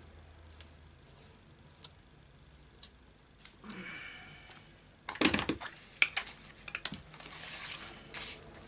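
Paper and craft supplies handled on a table: light clicks and taps, then louder clicking, tapping and paper rustling from about halfway through as a paper piece is glued and pressed onto a journal page.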